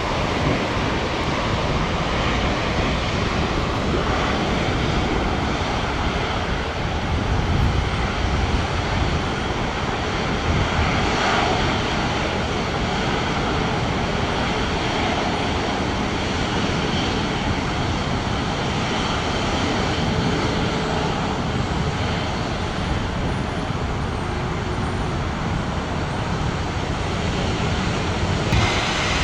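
Steady outdoor roar of road traffic and jet aircraft engines beside an airport runway, with a jet's noise growing louder near the end.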